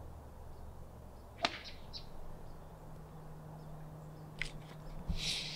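Golf wedge striking the ball once, a single sharp click about a second and a half in.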